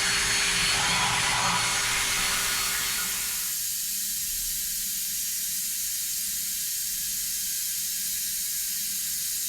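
A CNC milling machine running with a steady hissing spray inside its enclosure. About three and a half seconds in, the lower machine noise and its faint steady tone drop away, leaving only the high hiss.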